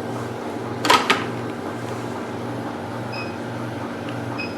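CTL69 cryolipolysis machine running with its handle started: a low hum that pulses in an even rhythm, two sharp clicks about a second in, and two short high beeps near the end.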